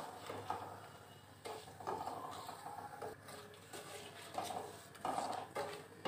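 Slotted spatula stirring spices in hot mustard oil in a non-stick wok, scraping and tapping against the pan in irregular strokes.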